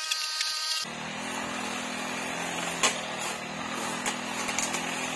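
Handheld brush cutter's small engine running at high speed while cutting grass and weeds, at first a high steady whine. About a second in it changes abruptly to a lower, rougher running sound, with a sharp tick about halfway through.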